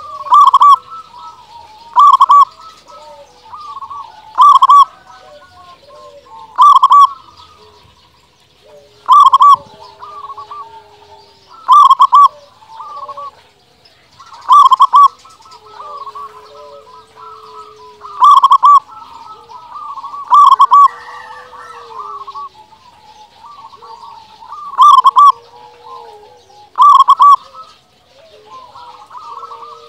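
Zebra dove (local perkutut) singing: loud, short, repeated song phrases about every two seconds, with softer cooing and low gliding notes in between.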